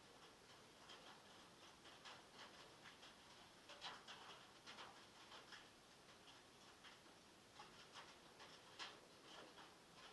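Faint rain on a metal roof heard from inside a log shed: irregular sharp ticks of single drops, a few a second, over a soft steady hiss.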